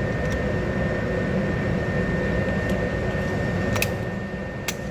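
Steady rumbling air-handling noise with a faint steady high whine running through it, typical of an indoor range's ventilation. A few light clicks sound over it, one just after the start, one near four seconds and one near the end.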